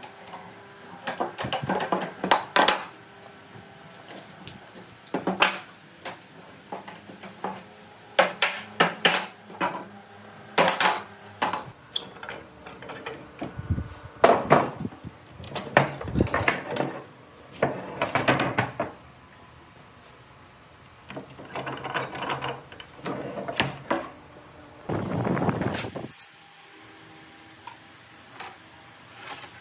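Metal clamps being loosened and taken off a glued-up wooden board panel: irregular clanks and knocks of steel on steel and on wood, with a scraping sound about a second long near the end.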